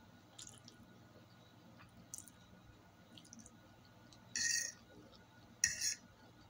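A person eating spaghetti, chewing quietly, with four short hissing noises; the two loudest come about four and a half seconds in and just before six seconds.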